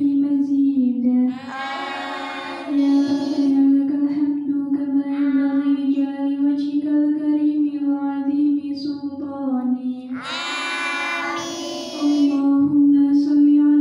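A group of girls reciting a prayer together in unison, chanted mostly on one steady held pitch, with the melody shifting briefly twice.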